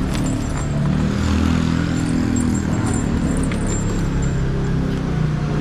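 Vehicle engine running steadily at low revs, with a few faint light clinks.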